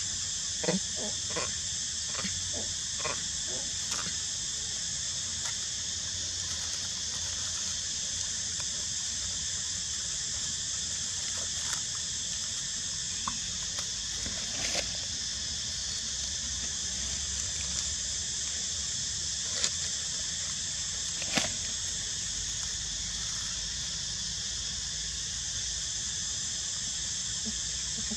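Steady, high-pitched drone of insects in full chorus. A quick run of short clicks sounds in the first few seconds, and a few single sharp clicks come later, the loudest about twenty and twenty-one seconds in.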